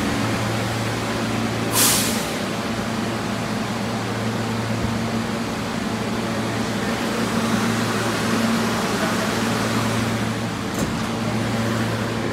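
An R160B subway train standing at the platform, its equipment giving a steady low hum. A short hiss of released air sounds about two seconds in.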